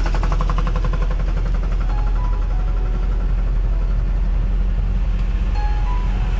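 Truck's diesel engine running steadily with a low rumble, heard from inside the cab as the tractor unit rolls slowly. A few brief beeps sound faintly over it.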